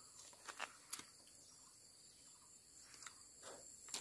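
Faint, steady high-pitched insect chirring in the forest, with a few brief soft ticks and rustles from vegetation or footsteps scattered through it.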